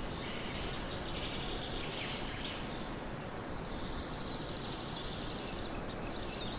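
Small birds chirping and trilling over a steady outdoor hiss. A dense, high trill runs through the middle of the stretch, with a few short chirps near the end.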